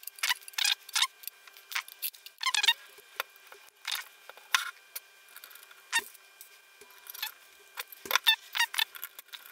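A 3.5-inch hard drive being handled and fitted into a metal drive bay, with irregular metallic clicks, taps and short scrapes, several close together near the end. A faint steady hum runs underneath.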